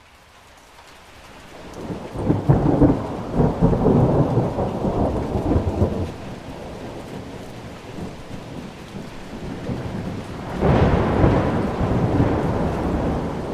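Thunderstorm: steady rain fading in, with two rolls of thunder. The first rumbles for about four seconds from around two seconds in; the second breaks suddenly near the end and rolls on.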